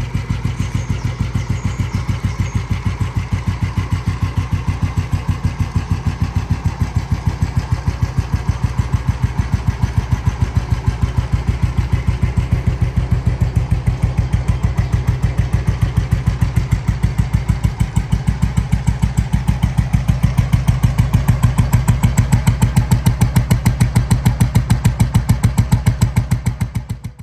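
1954 Royal Enfield G2 Bullet's 350 cc single-cylinder four-stroke engine idling, with an even beat of about five pulses a second. It cuts off suddenly at the end.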